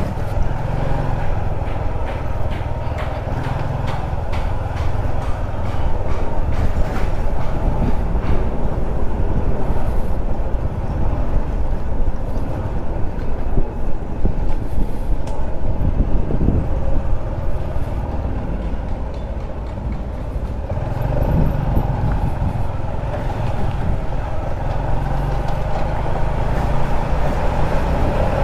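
Honda RS125 Fi underbone motorcycle's single-cylinder four-stroke engine running steadily as it rides slowly, with a few slight rises in pitch along the way.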